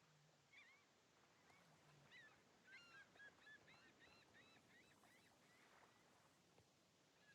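Faint flock of birds calling: a quick series of short, arching calls, densest from about two to four and a half seconds in, over near silence.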